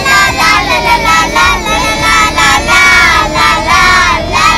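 Several young girls singing together loudly inside a car's cabin, with a steady low road rumble underneath.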